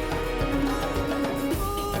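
Background music with a steady beat and held melodic notes, the melody shifting about one and a half seconds in.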